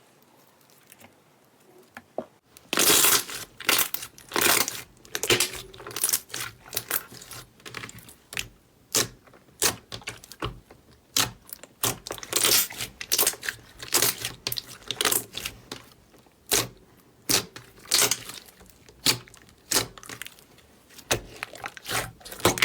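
Slime being squeezed and poked, giving an irregular run of sharp crackling pops and squelches that starts about three seconds in.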